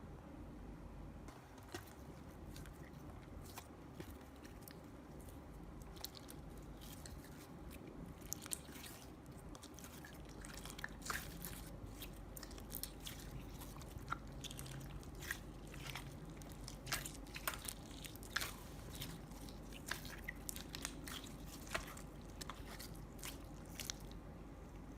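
Store-bought slime being squeezed and mixed by hand: a run of small sharp clicks and pops, more frequent and louder from about ten seconds in.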